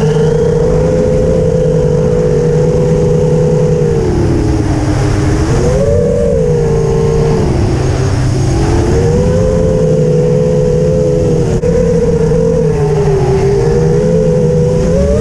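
Eachine Wizard X220 quadcopter's brushless motors and propellers whining in flight. The pitch dips and rises with throttle changes about five and eight seconds in, and the close motor tones drift slightly apart from one another.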